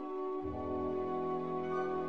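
Background music of sustained chords, with a low bass note coming in about half a second in.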